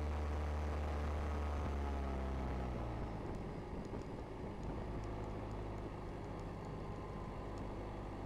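Motorcycle engine under way, heard from the riding bike: steady running, then the engine note drops about three seconds in and runs lower with rushing wind, picking up again at the very end.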